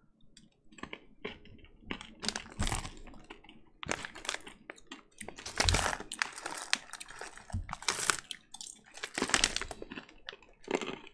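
Crunching of candy-coated white chocolate sweets (Lacasitos White) being chewed, mixed with the crinkling of their plastic packet: irregular sharp crackles, in denser clusters a few times.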